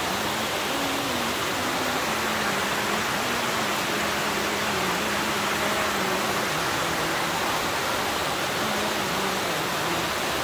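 Water pouring over a stone dam spillway and churning into the river below: a steady, even rush. A faint melody wanders beneath it.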